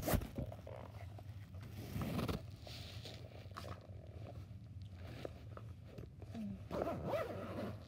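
Soft scraping and rustling from handling, with a few small clicks and a denser scrape about two seconds in.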